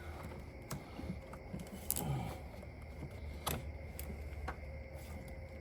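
Scattered light clicks and taps of parts being handled as an air intake tube is fitted back onto the throttle body, about half a dozen irregular clicks over a steady low hum.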